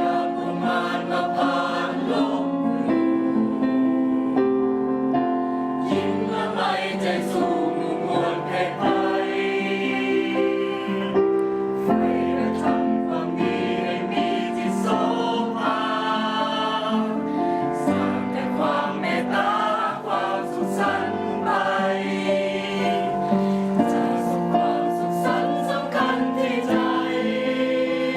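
Music with a choir singing held, sustained notes over an accompaniment.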